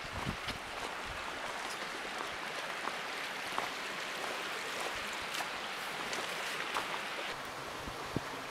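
Steady rush of creek water running over rock, with a few faint footstep crunches on sandy, rocky ground.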